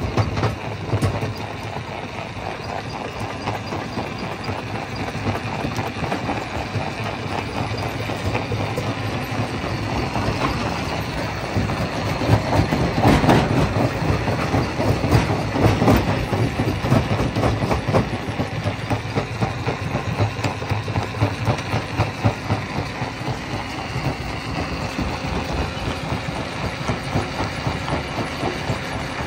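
Rock crusher machine running: a steady heavy mechanical rumble with continuous rapid clattering, louder for several seconds about halfway through.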